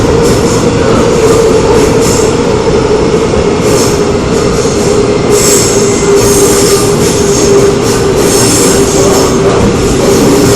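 Running noise of a Seoul Metro Line 2 old 2000-series resistance-control electric train: a steady rumble with a hum that drops slightly in pitch, and high hissing squeal from the wheels coming and going several times.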